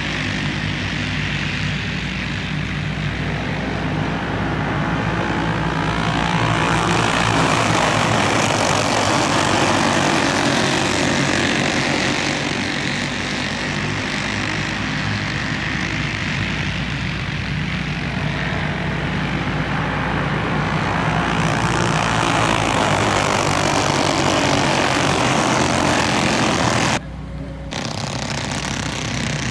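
A field of flathead-engine racing go-karts running laps, their small engines droning together; the sound swells twice as the pack passes and eases off between, with a brief dip near the end.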